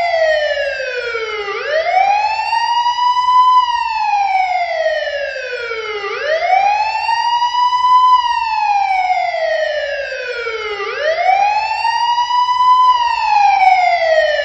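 Battery-operated toy car's electronic siren: a wailing tone that rises quickly and then falls slowly, repeating about every four and a half seconds.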